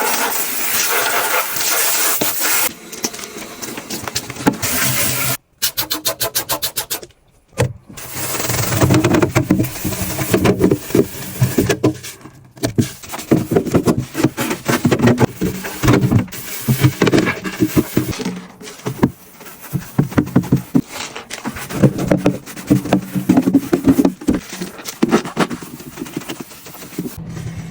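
Hands cleaning a refrigerator: a hiss at first, a quick run of clicks about six seconds in, then a long stretch of rubbing and scrubbing.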